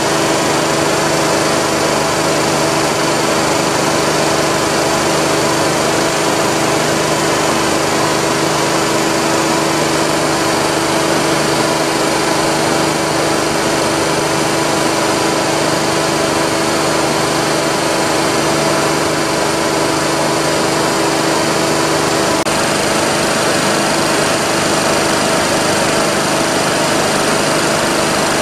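J.P. Sauer WP311L marine air compressor running steadily: an even, unbroken mechanical din with a steady hum.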